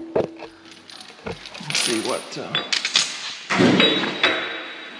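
Light metallic clinks and rattles of steel shims and bolts being handled and set on a ball-socket cap, with a few brief murmured voices.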